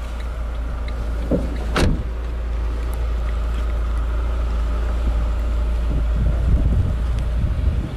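A car door shut once, a sharp thud about two seconds in, over a steady low rumble of wind on the microphone.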